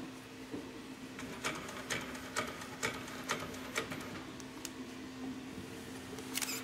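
Industrial sewing machine stitching slowly through old cotton canvas, one needle stroke at a time: about two sharp clunks a second for a few seconds over a steady motor hum, then a single louder clatter near the end.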